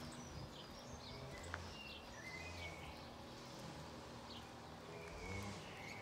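Garden birds chirping and calling: scattered short, high chirps and whistles over a faint steady low hum, with a single soft click about one and a half seconds in.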